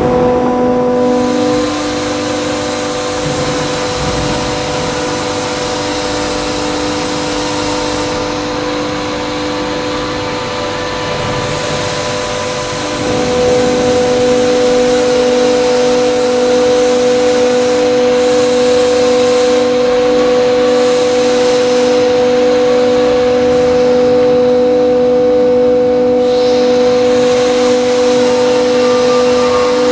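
The Parker hydraulic system of a CNC four-roll plate bending machine, running with a steady whine of several tones while the hydraulic side supports move. About 13 seconds in it grows louder and a lower hum comes in.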